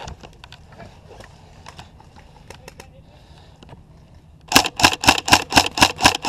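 Airsoft electric gun, a Tokyo Marui High Cycle AUG, firing a quick string of about a dozen sharp shots at roughly seven a second, starting about four and a half seconds in. Before that there are only faint clicks and rustling from movement.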